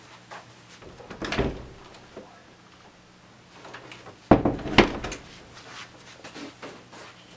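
Household knocks: a dull thump a little over a second in, then two sharp knocks about half a second apart, like a door or drawer being shut.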